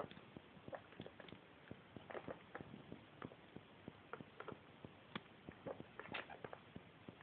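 Pet rats wading and dipping their heads for peas in shallow water in a plastic pool: faint, irregular small splashes and taps, a few sharper ones now and then.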